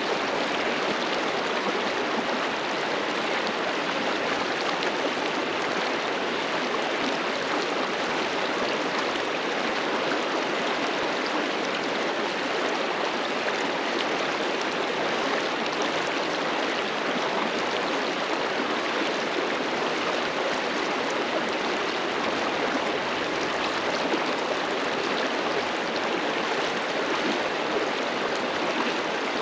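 A mountain river rushing and gurgling over rocks: a steady, unbroken wash of moving water.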